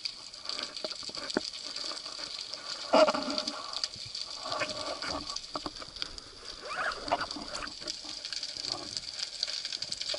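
Underwater sound picked up by a freediver's action camera: a steady hiss with a crackle of fine clicks. Muffled bursts of water noise come from the diver's movements against the camera, the loudest about three seconds in.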